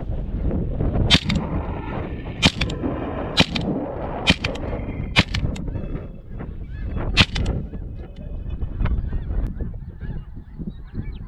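Shotgun pass shooting at a flock of snow geese: about six sharp shotgun blasts in the first seven seconds, with the flock's honking calls and wind rumble on the microphone underneath.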